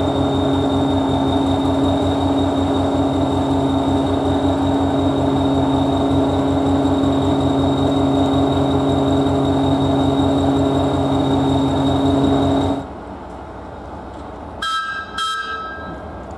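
Hastings Class 201 DEMU 1001's English Electric diesel engine idling with a fast low throb and a steady high whine, which cuts off abruptly about 13 seconds in. Then, quieter, come two short train-horn blasts.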